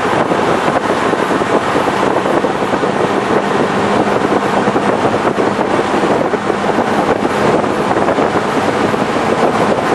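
Steady wind rush and road noise from a Corvette Z06 on the move, with a low steady hum underneath, heard through a camcorder's built-in microphone.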